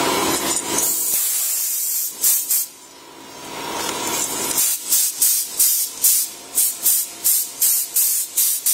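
Steady machine noise, like a CNC router cutting a board, for about two seconds. Then a string of short, sharp hisses follows, about three a second, with a pause after the first two.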